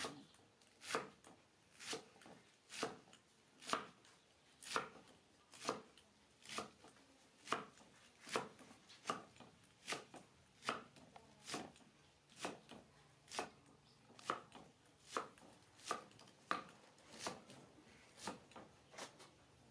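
Steel meat cleaver chopping vegetables on a wooden cutting board, sharp knocks at an even pace of about one stroke a second.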